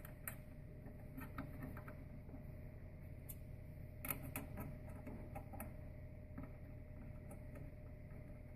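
Faint, scattered small clicks and scrapes of fingers threading small nuts back onto a control card's mounting studs by hand, with a cluster of clicks about four seconds in. A steady low hum runs underneath.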